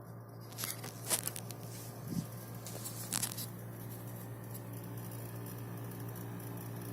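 Panasonic F-Y20EH dehumidifier running with a steady low hum, with several sharp crackling clicks in the first three and a half seconds. This is the abnormal noise that the owner suggests a repair did not cure.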